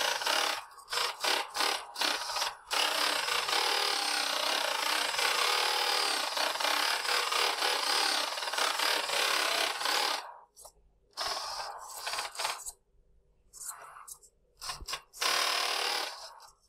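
Small 1/28-scale RC car with a brushless motor run by a Furitek Momentum ESC, driven on a wooden desk: motor and tyres on the wood come in short bursts of throttle, then one long run of about seven seconds, then short spurts again with pauses between.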